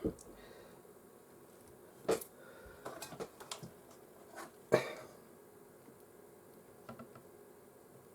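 Small clamps being fitted and adjusted: a sharp click at about two seconds, a few lighter ticks around three seconds, and a louder knock near five seconds.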